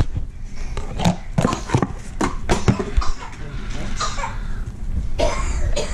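Puffy slime made of glue and shaving cream being squeezed and kneaded by hand in plastic bowls: a run of irregular wet squelches and sticky clicks.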